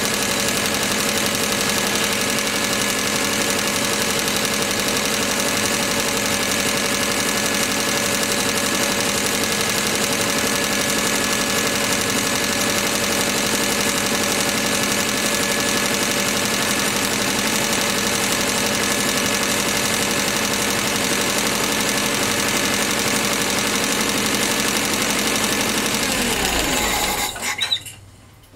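Nissan H20 four-cylinder gasoline forklift engine running at a steady speed on its first run after new valve stem seals were fitted. It is switched off near the end and winds down to a stop.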